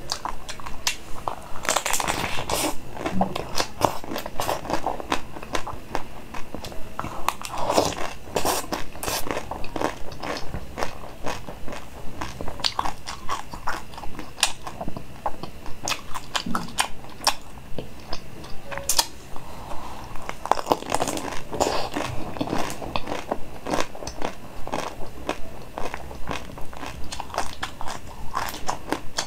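Close-miked biting and chewing of frozen chocolate-dipped, donut-shaped sweets: a steady run of crisp cracks and crunches, about two a second.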